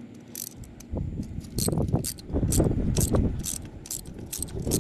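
Ratchet with a Torx T30 bit clicking in a quick run, about three clicks a second, as it backs out a screw holding an electronic parking brake motor to a rear brake caliper.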